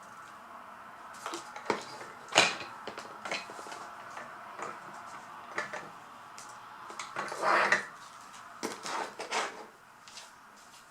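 Small hard plastic toy pieces being handled, with scattered clicks and clacks, one sharper knock a couple of seconds in and a short rustling scrape past the middle.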